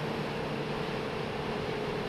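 Motorcycle ridden at road speed, heard from a helmet-mounted action camera: steady wind rush with the engine's hum underneath, its pitch sinking slightly.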